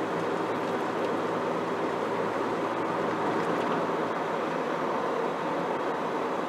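Steady road and engine noise inside the cabin of a car moving at cruising speed.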